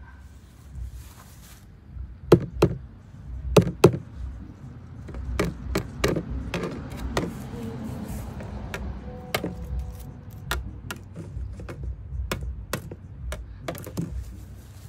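Taps and knocks on a clear plastic storage tub: two loud pairs about two and a half and four seconds in, then many lighter taps at an irregular pace.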